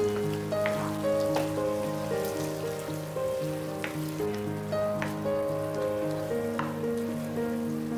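Background instrumental music with a repeating bass pattern, over a faint hiss of food sizzling in a pan with a few sharp clicks.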